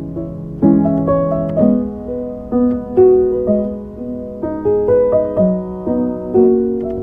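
Slow, gentle piano music: single notes and soft chords struck every half second to a second, each ringing and then fading.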